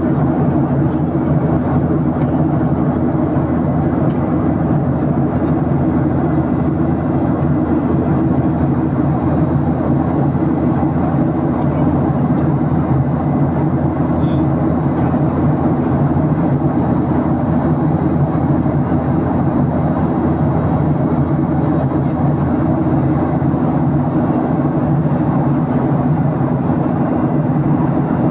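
Airplane noise: a steady, unchanging low drone that stays level throughout.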